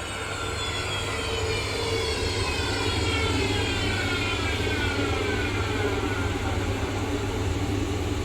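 The spindle motor of an HSS saw blade grinder is running with a steady hum. Over the first six seconds or so, a high whine slowly falls in pitch.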